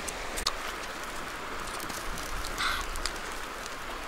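Steady rush of a swollen river's flowing water, with a few faint clicks scattered through it.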